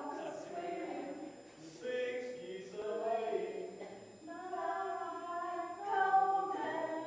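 A group of older men and women singing together in phrases of held notes, the singing growing fuller about two seconds in.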